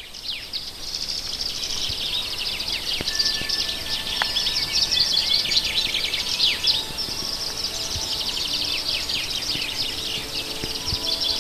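Dense chorus of many birds chirping, trilling and calling all at once in pine woods, full of quick downward-sliding calls.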